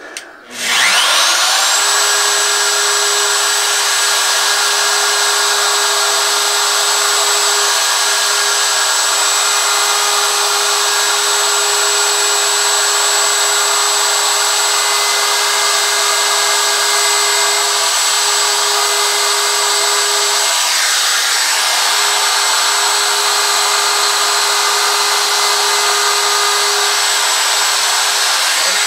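A DeWalt router starts up with a quickly rising whine that settles at full speed, then runs steadily as it routes along the carved lines of a wooden sign.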